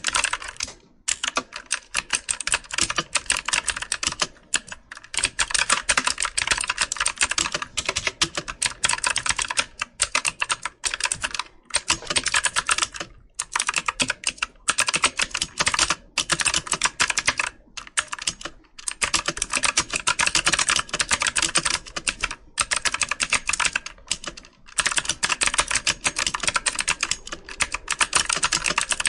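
Computer keyboard typing: fast runs of key clicks and taps, broken by short pauses every second or two.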